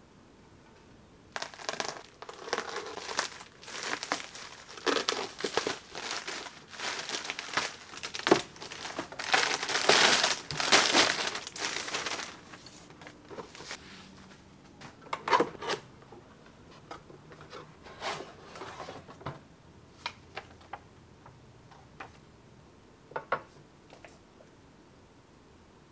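Plastic mailer bag crinkling and tearing as it is pulled off a cardboard box, loudest about ten seconds in. After that, only scattered short rustles and light taps of handling.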